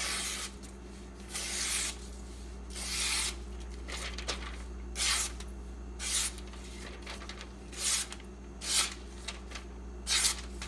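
A freshly sharpened steak knife being tested: about eight short rasping strokes of the edge, roughly one a second.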